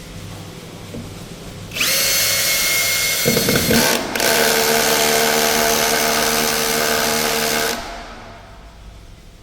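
Dekton M21-ID13100PRO 21V cordless 3-function hammer drill running at speed, starting about two seconds in. It briefly stops and restarts about four seconds in, then runs steadily with a high whine before shutting off near the end.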